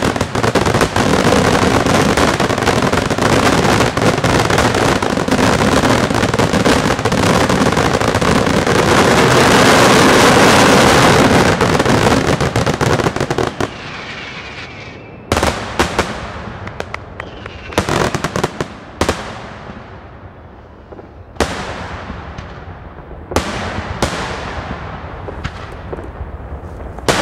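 Daylight fireworks display by La Tirrena Fireworks: a dense, continuous barrage of rapid bangs and crackling, loudest a little before the middle. It then thins out to single sharp bangs every second or two, each trailing off in an echo.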